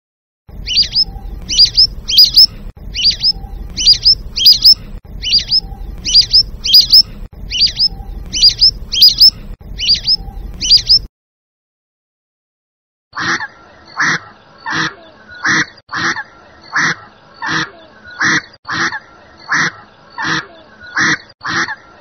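Lesser whistling ducks calling: a steady run of shrill, rising whistled notes in pairs. After a short silence comes a spot-billed duck quacking in a steady series, a little more than once a second.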